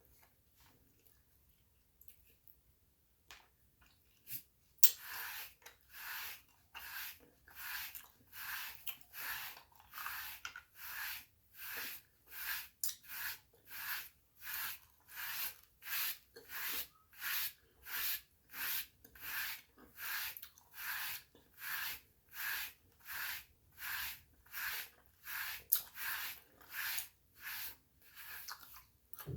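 Dry body brush rasping over skin in steady, evenly spaced strokes, a little more than one a second. The strokes start about five seconds in, after a sharp click.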